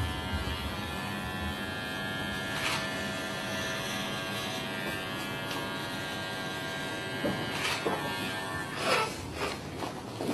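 Cordless electric hair clippers running steadily as they cut hair, stopping about eight seconds in. A few short clicks follow near the end.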